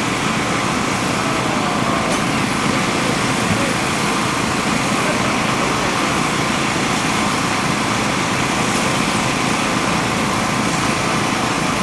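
A steady mechanical drone with a constant hiss, like a small engine running, holding one level throughout.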